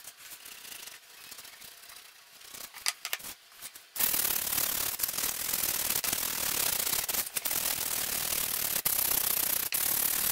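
Hand sanding of a scroll-sawn wooden fretwork panel with a P150 sanding disc. Light rubbing with a few soft clicks at first, then from about four seconds in a loud, steady scratching as the disc is rubbed quickly back and forth over the wood.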